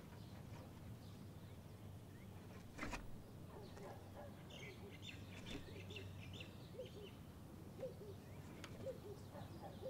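Faint chirping calls over a low steady hum, with a quick run of chirps about four to six seconds in and a single knock about three seconds in.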